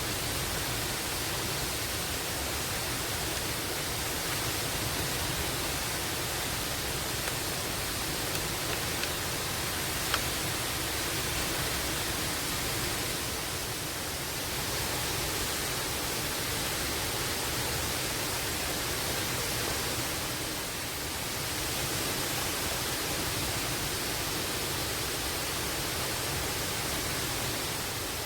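Steady rushing of a waterfall, with one brief sharp click about ten seconds in.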